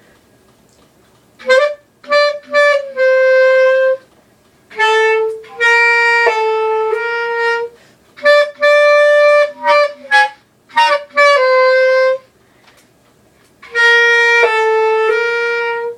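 Clarinet played by a beginner: four short phrases, each a few quick notes ending on a longer held note, with pauses between.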